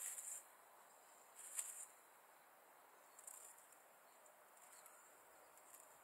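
Dry reed nest material crackling and rustling in a few short bursts as a common crane works its bill in the nest, against near silence.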